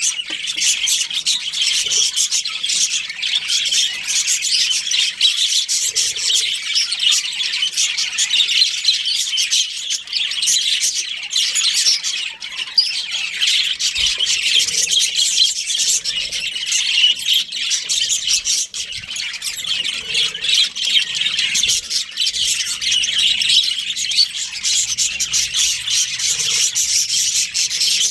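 Small pet parrots chirping and chattering continuously, many quick high calls overlapping with occasional harsher squawks.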